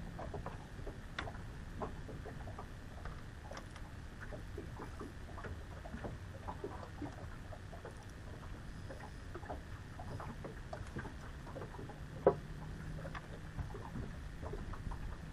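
Small waves lapping against a boat's hull in many small irregular ticks over a low steady rumble, with one sharper knock about twelve seconds in.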